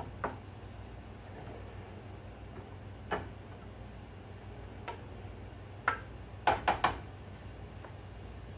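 Spatula knocking and scraping against a small skillet as eggs are stirred over a gas burner: scattered sharp clicks, with a quick run of four about six to seven seconds in, over a low steady hum.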